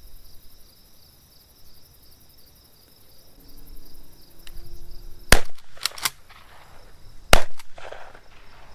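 Two shotgun shots about two seconds apart, with a few fainter cracks between them, over a steady drone of insects.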